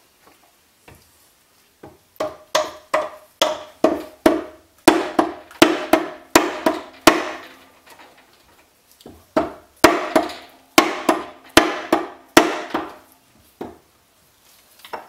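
Hammer tapping on the crankcase of a 1956 Ariel Square Four engine to drive the case halves apart. About twenty sharp knocks, two to three a second, come in two runs with a pause of about a second and a half between them. Each knock has a brief metallic ring.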